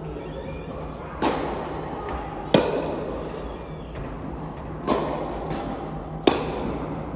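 Tennis ball struck back and forth by rackets in a rally, four hits in turn, the near player's sharp and loud, the far player's softer, each echoing in a large indoor hall, over a steady low hum.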